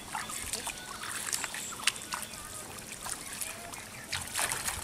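Bare feet wading through ankle-deep water over grass, each step a short splash, at an uneven walking pace.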